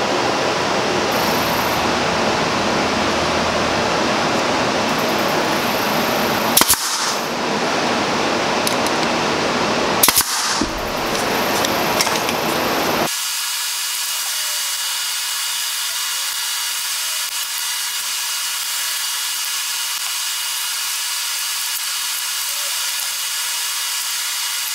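Two sharp shots about three and a half seconds apart, typical of a pneumatic brad nailer firing, over a steady hiss. About halfway through, the hiss cuts off, leaving a thinner, higher hiss.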